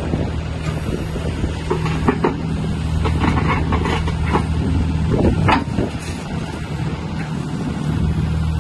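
Small mini excavator diesel engine running under hydraulic load as the arm hooks onto and lifts a tilting bucket. A few short metal clanks come from the coupler and bucket, around two seconds in and again about five seconds in.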